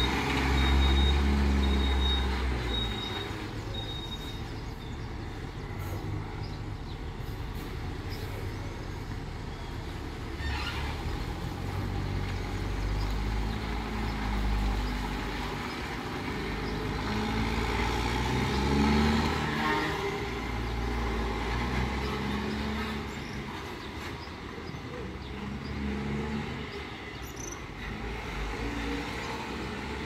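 Box truck manoeuvring: its diesel engine runs and swells several times under throttle, and its reversing alarm beeps steadily for the first four seconds or so, then stops. A short hiss about ten seconds in.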